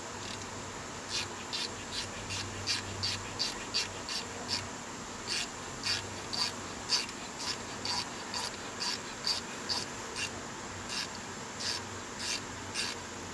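Steel thread-repair insert being screwed into the stripped drain-plug hole of the engine oil pan with its installer tool, turned by hand: a run of short, high scraping squeaks from the threads, two or three a second.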